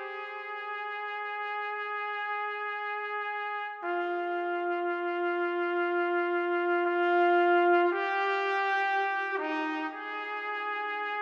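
Slow symphonic music: long-held chords, each sustained for several seconds, changing three times.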